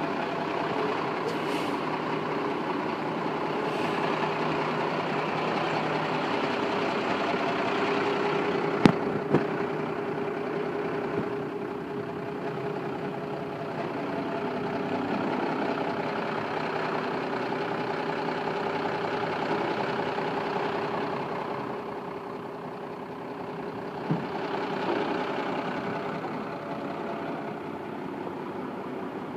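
Yard goat (terminal tractor) engine idling steadily, with a sharp click about nine seconds in and a smaller one later on.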